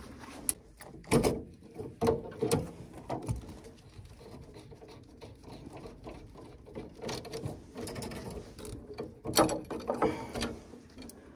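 Irregular clicks, knocks and rattles of hands working parts inside a combi boiler as a retaining clip is prised out of the pipework, with two sharper knocks about a second in and near the end.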